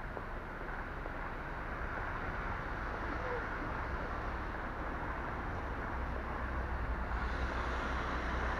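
A car's engine and road noise as it moves at low speed. The low rumble grows stronger about six seconds in, and a hiss rises near the end as the noise gets louder.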